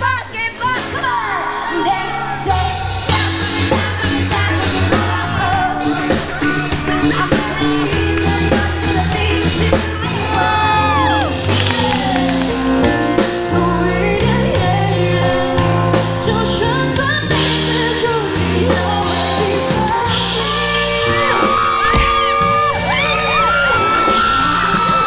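Live band playing a song, with a woman singing over electric guitar, bass and drums; the drums come in about two and a half seconds in. People yell and whoop along.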